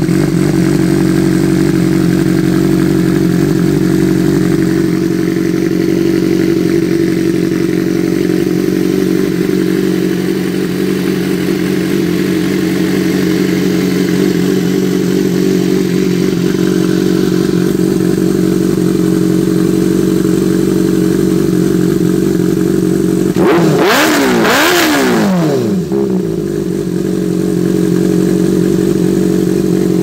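Motorcycle engine idling steadily through an SC Project S1 slip-on exhaust. Late on, one quick blip of the throttle revs it up, and it drops back to idle within about two seconds.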